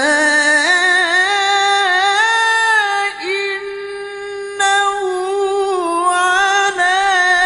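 A solo male voice reciting the Quran in the melodic tilawah style. It holds long, high, ornamented notes with vibrato and melodic turns, with a few brief breaks.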